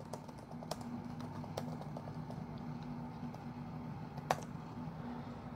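Typing on a computer keyboard: a run of light key clicks, with one louder click about four seconds in, over a faint steady low hum.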